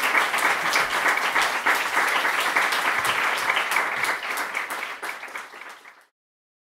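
Audience applauding, a dense patter of many hands clapping that fades from about four seconds in and cuts off suddenly to silence near the end.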